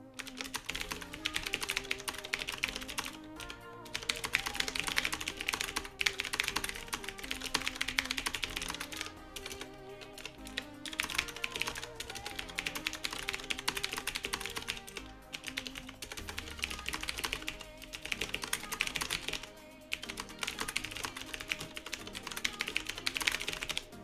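Fast continuous typing on a Qwerkywriter typewriter-style mechanical keyboard, its very clicky keys clacking rapidly at close to 100 words a minute, with brief breaks every few seconds. Background music plays throughout.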